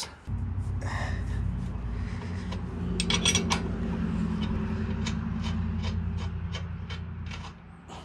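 Wrench clicking on the rear axle nut of an e-bike's hub-motor wheel as the nut is loosened: a cluster of clicks about three seconds in, then a regular run of about three clicks a second. Under it is a steady low hum.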